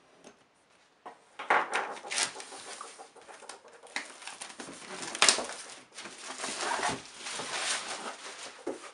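A faint scissor snip, then from about a second in clear plastic wrapping crinkling and rustling loudly and unevenly as it is handled and pulled out of a cardboard box.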